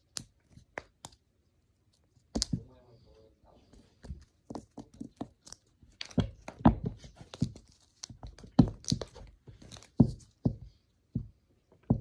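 A kitten pouncing and landing on a wooden floor while batting at a feathered bird toy: irregular thumps and taps, sparse at first and coming thick and fast over the second half.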